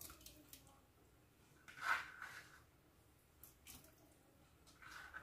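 Potato pieces dropped by hand into a pot of broth, plopping into the liquid a few times, the loudest plop about two seconds in.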